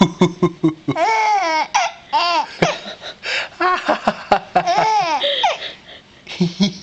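A young baby vocalising: a run of high-pitched coos and squeals that rise and fall in pitch, mixed with laughter.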